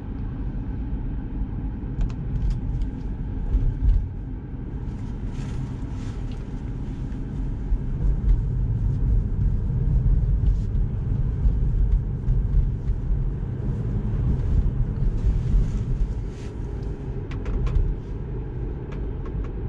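Steady low road and tyre rumble inside the cabin of a moving Tesla Model 3, with a few faint ticks.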